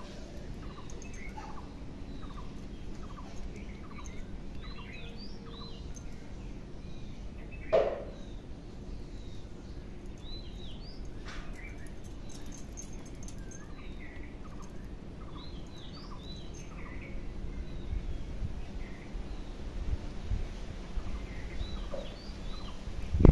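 Small birds chirping, many short calls scattered throughout, with one sharp knock about eight seconds in and low rumbling toward the end.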